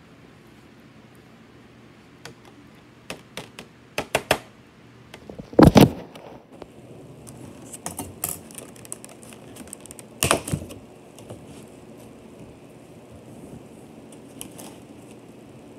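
Handling noise from a covered handheld camera: scattered clicks and knocks with some rubbing, loudest in two short clusters about six and ten seconds in.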